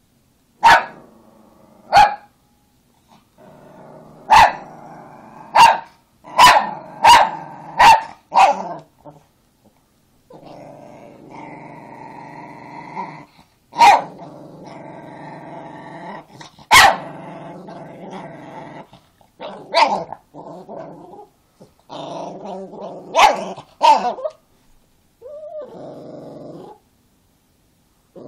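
An angry Chihuahua growling in long, steady rumbles, broken by about a dozen short, sharp barks that come singly or in quick runs of two or three.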